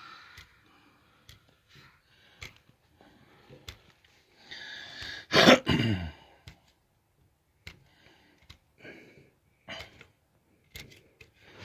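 Knife trimming a rubber pipe seal: faint scattered scraping and clicking. About halfway through, a person gives a loud sigh that falls in pitch.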